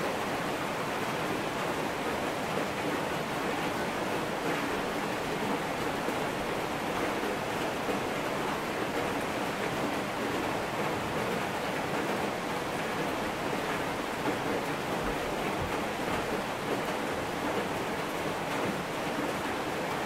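Rain falling steadily, an even hiss.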